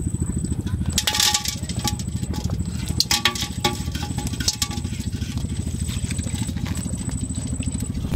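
Snails, shrimp and small fish tipped out of a bamboo cage trap into an aluminium pot, clinking and rattling against the metal in clusters about a second in and around three seconds in. A steady low fluttering rumble runs underneath.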